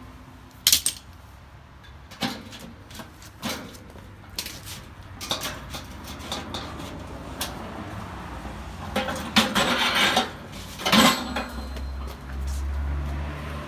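Thin sheet-metal parts of a chiminea clanking and knocking as they are handled, with a busier run of clatter about two-thirds of the way through. A low hum comes in near the end.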